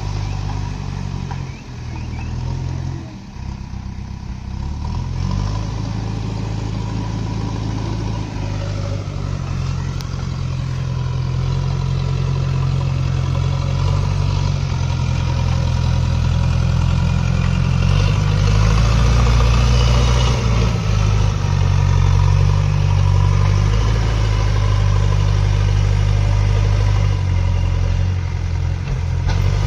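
Diesel engine of a JCB backhoe loader running, its revs shifting up and down, growing louder partway through.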